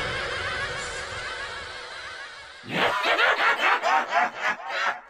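A person laughing hard in rapid bursts, starting about halfway through, after a fading, warbling sound.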